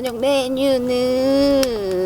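A woman's voice drawing out one long, held syllable in a sing-song way, sliding down in pitch near the end.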